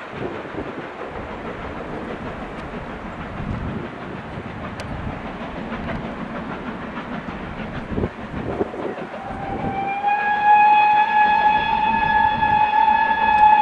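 A locomotive-hauled passenger train rumbles slowly past with a diesel engine running low. About ten seconds in, a long steady steam whistle sounds: a single note that glides up a little as it opens, then holds, louder than the train.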